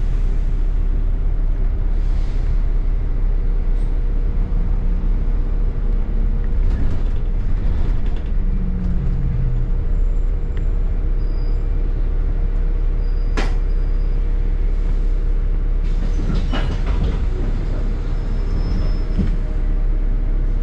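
Ride noise inside a moving double-decker bus: a steady low rumble of engine and road with a constant hum, broken by occasional clicks and rattles, the sharpest about 13 seconds in.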